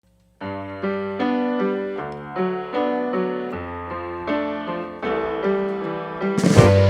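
Background music: an electric piano plays chords, and a drum kit comes in near the end.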